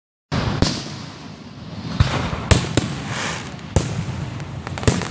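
Aerial fireworks shells bursting: about six sharp bangs a half second to a second apart, over a continuous noisy din.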